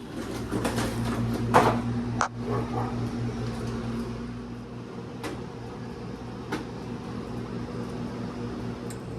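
A steady, slightly pulsing machine hum, with a few sharp clicks and knocks over it.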